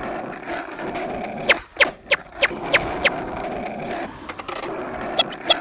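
Skateboard clacks: a run of sharp, ringing clacks, evenly spaced about three a second, over a steady hum, with two more near the end.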